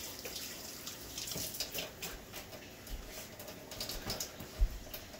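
Irregular splashing and patter of hands being washed at a kitchen sink, with a single low thump near the end.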